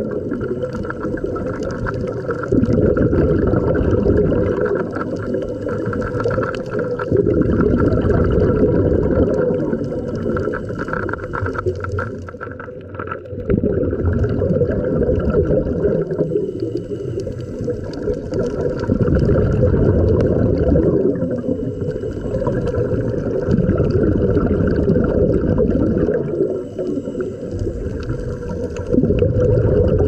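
Scuba divers breathing through their regulators underwater: the hiss of each breath drawn and the bubbling rumble of exhaled air, swelling and easing in a slow cycle every few seconds.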